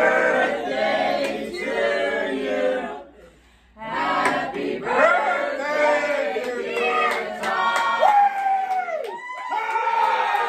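A group of people singing together, with a short lull about three seconds in, then singing louder and ending in a long held shout and cheering.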